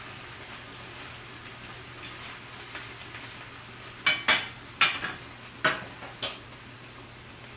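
Steaks and sliced potatoes frying in skillets with a steady sizzle while a fork stirs them. About four seconds in, the metal fork strikes the pans five times in quick succession over about two seconds.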